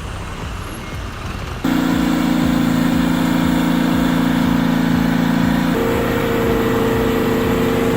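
Bulldozer's diesel engine running, a loud steady drone that cuts in suddenly about two seconds in after a quieter engine sound and steps up in pitch near the end.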